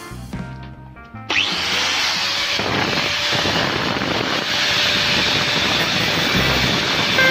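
A power tool starts suddenly about a second in and runs steadily with a harsh cutting or grinding noise. Music is heard briefly before it.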